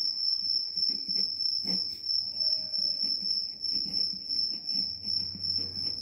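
A cricket chirping steadily: one continuous high-pitched trill that pulses a few times a second.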